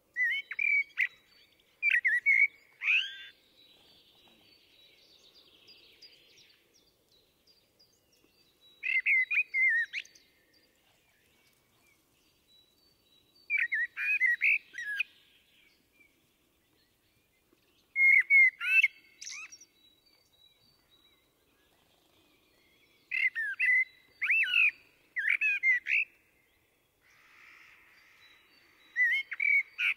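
Eurasian blackbird singing: short, clear fluting phrases, some ending in a thin, high twitter, about six phrases with pauses of a few seconds between them.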